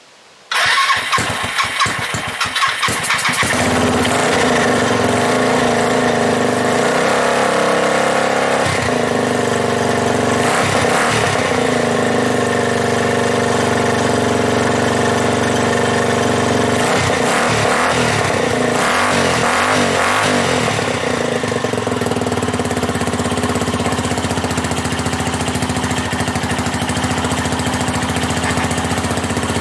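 Suzuki GN250's air-cooled single-cylinder four-stroke engine firing up on a cold start after sitting for a year. It catches about half a second in, runs unevenly for a couple of seconds, then settles into a steady run, its pitch rising and falling a few times as the throttle is worked.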